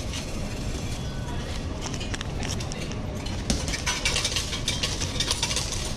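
Steady hum of a metro station hall, with a run of small mechanical clicks and clatter about halfway through as a ticket vending machine is worked.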